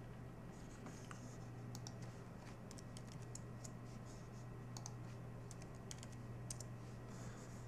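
Faint computer keyboard typing and mouse clicks: scattered light key taps and clicks over a steady low hum.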